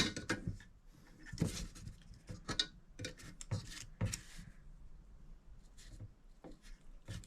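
Small tools and the drawers of a mini steel tool chest being handled: a scatter of light clicks, taps and rubs, busier in the first half and sparser toward the end.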